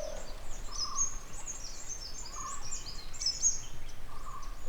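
Birds chirping: a steady chorus of quick, high chirps, with a lower call from another bird repeating about every one and a half seconds.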